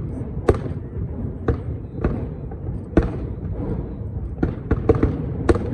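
Aerial firework shells bursting in a string of about nine sharp bangs, coming closer together near the end, over a continuous low rumble.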